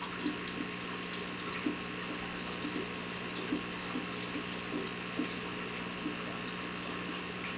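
Steady running and splashing water with a constant pump hum from aquarium filtration, with faint small clicks scattered through it.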